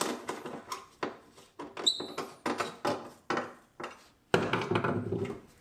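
Irregular clicks and knocks of metal hardware being handled as a cut-down screw is set to lock down one end of an aluminium S-track anchor rail, with a brief squeak about two seconds in and a longer scraping rustle near the end.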